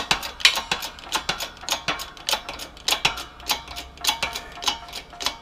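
Hand-pumped hydraulic jack of a 20-ton shop press being worked, a fast, uneven run of sharp clicks and ticks at about five a second, as the ram presses the pin out of a small-block Ford piston.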